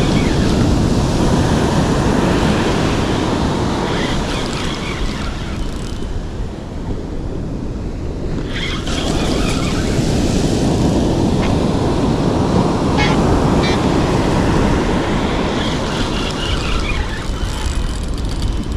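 Surf washing onto a beach, with wind buffeting the microphone in a steady low rumble that eases for a few seconds in the middle.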